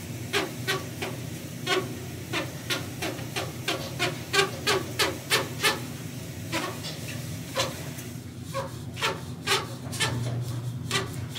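Hand-turned rewind knob on a Kelmar 35mm film cleaner clicking about three times a second as the used cleaning pad is wound back, the clicks thinning out after about six seconds, over a steady low hum.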